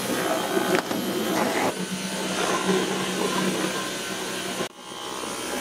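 Dyson V12 Detect Slim cordless stick vacuum running steadily with its motorised brush-bar head on a shag rug. The drone drops out abruptly about three-quarters of the way through and swells back up.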